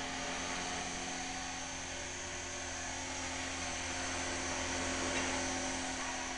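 Align T-Rex 450 V2 electric RC helicopter hovering: a steady, unchanging whine from its motor and spinning rotors.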